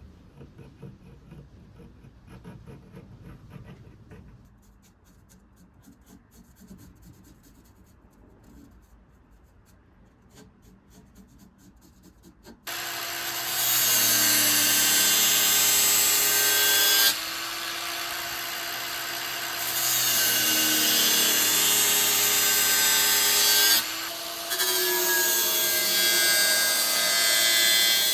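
Faint scraping and clicks of handwork, then about halfway through an angle grinder with a flap disc starts. It runs in three long stretches with two short breaks, its whine shifting a little in pitch.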